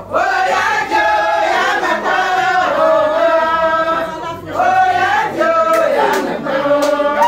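A crowd of voices singing a chant together, with long held notes that step slowly in pitch.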